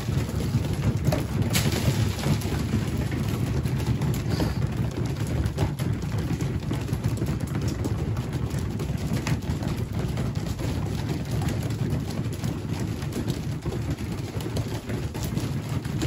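Flock of young pigeons feeding, many beaks pecking grain off a hard floor in a dense pattering like rain, over a low steady rumble.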